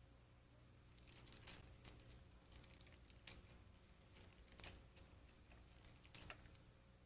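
Faint crinkling and crackling of a clear stabilizer sheet being handled and pulled away from the fabric, starting about a second in, with a few sharper crackles among softer rustles.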